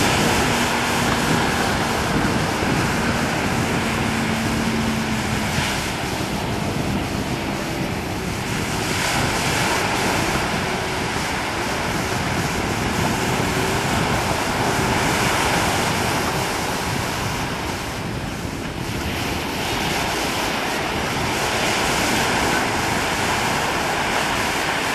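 Wind buffeting the microphone over the steady rush of choppy sea surf, with a faint engine hum during the first few seconds.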